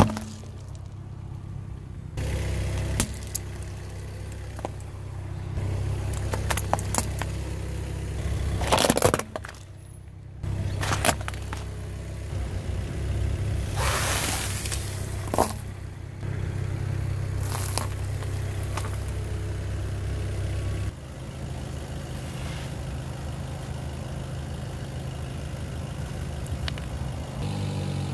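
A car engine runs steadily at low revs while the car's tyre rolls slowly over objects and crushes them: a series of cracks, crunches and scrapes. The sharpest cracks come about nine seconds in and again around fourteen seconds in, where lollipops on a block of floral foam go under the tyre.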